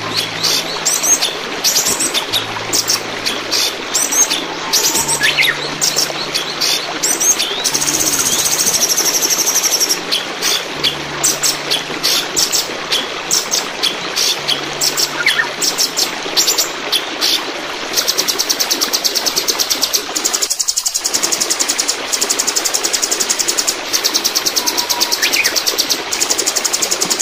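Chinese hwamei (poksay hongkong) singing loud, rapid stuttering phrases over a steady rush of running water. About two-thirds in, the song turns into a fast, unbroken trill.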